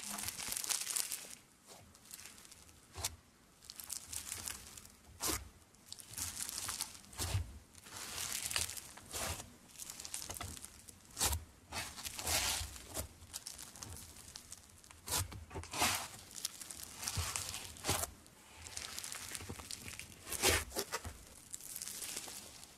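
Hands squeezing, stretching and pressing a fluffy blue slime, giving crackling sounds in irregular bursts with a few sharp pops.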